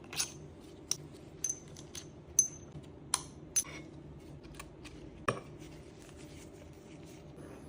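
Metal engine parts and tools clinking and clicking as a motorcycle engine's clutch is taken apart: about a dozen separate sharp clinks, some with a brief metallic ring, stopping a little past five seconds in.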